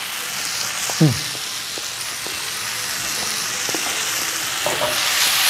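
Stir-fried flat rice noodles with beef sizzling in a nonstick wok over a gas flame, a steady hiss that grows louder near the end as the noodles are turned. There are a few light spatula taps against the pan, and a short falling hum from a voice about a second in.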